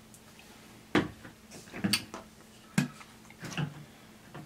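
Close-miked chewing of crispy fried chicken: a few sharp crunches and mouth smacks, about one a second.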